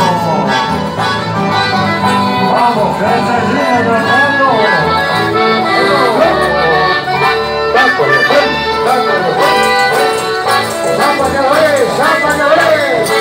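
A live folk band playing through a PA, led by two accordions over strummed guitars, with voices joining the melody.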